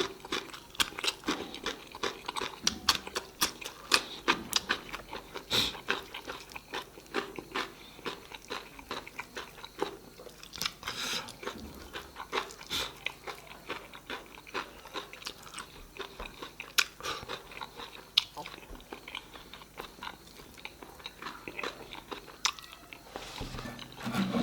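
A person chewing and eating food close to the microphone, with many quick, irregular wet clicks and crunches.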